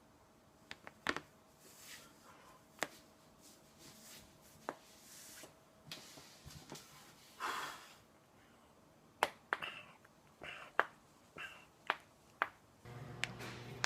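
Spinal joints cracking in a back adjustment: a series of sharp pops, scattered at first and coming about twice a second in the last few seconds. A short hissing rush comes about halfway through.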